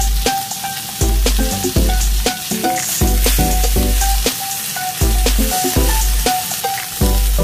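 Strip loin beef steak sizzling as it sears in hot fat in a frying pan, a steady crackling hiss, heard over background music with a repeating bass beat.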